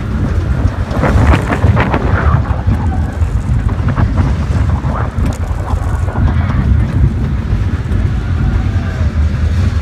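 Roller coaster train running fast along a steel track: loud wind buffeting the microphone over the rumble of the train.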